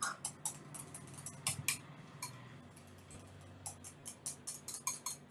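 Small wire whisk clicking against a glass bowl as it beats cream cheese and yogurt into a smooth sauce: quick, irregular light ticks, easing off briefly in the middle.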